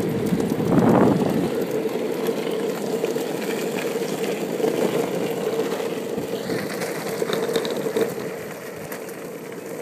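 Skateboard wheels rolling fast on pavement: a steady rumble with a constant hum, swelling louder about a second in, with faint clicks over the road surface.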